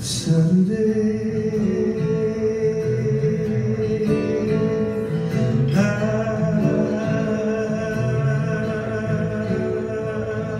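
Two acoustic guitars playing an instrumental ending to the song, with strummed chords and picked notes. A strong strum comes at the start and another about six seconds in.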